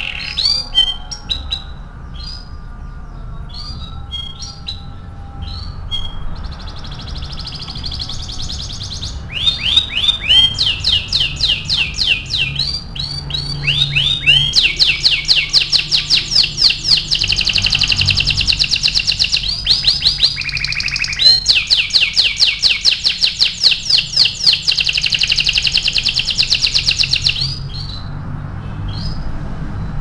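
Domestic canary singing: scattered chirps and short notes at first, then fast runs of rapidly repeated sweeping notes, building to two long, loud rolling trills of several seconds each. It is a canary lure song, played to set other canaries singing.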